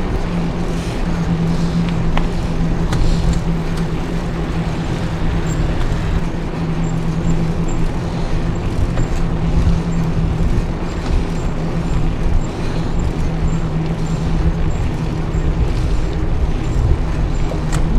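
Steady rolling and wind noise of a bicycle ride, with a constant low hum and a faint regular ticking that starts about five seconds in.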